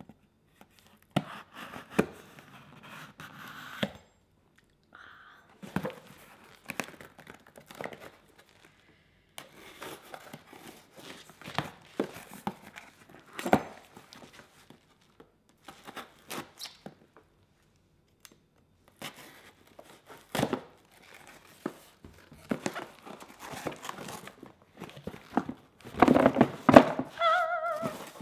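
A large kitchen knife slitting the packing tape on a cardboard box: tape tearing and cardboard scraping and rustling in short strokes, with occasional sharp knocks against the box. The handling gets busier and louder near the end as the flaps are pulled open.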